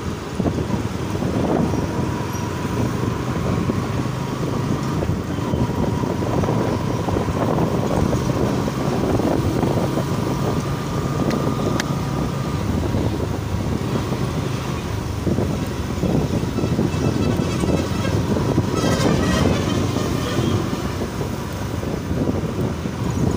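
Motorcycle riding along a rough road: the engine runs steadily under road and traffic noise. A vehicle horn sounds briefly about nineteen seconds in.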